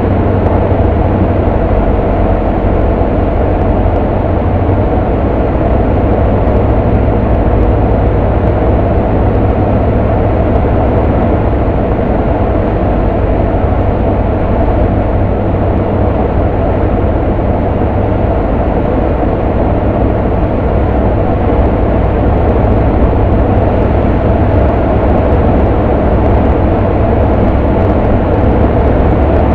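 Cessna 152's four-cylinder Lycoming O-235 engine and propeller, a loud, steady drone heard inside the small cockpit in flight.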